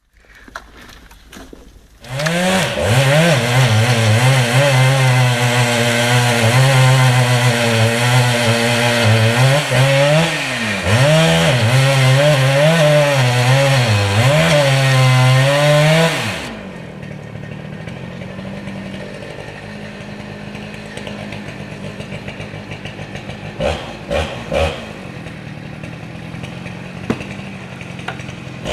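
Two-stroke chainsaw cutting at full throttle, its engine note wavering and dipping as the chain bites into wood. About halfway through it drops back to a steady idle with a few knocks. It revs up again at the very end.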